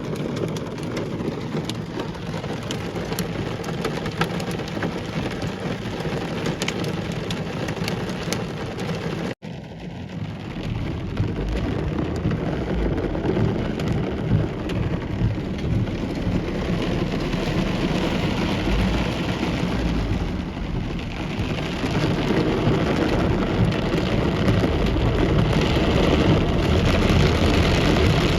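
Hail and heavy rain pelting down: a dense, steady patter scattered with sharp clicks of stones striking. The sound breaks off for an instant about nine seconds in, then comes back heavier and builds louder toward the end.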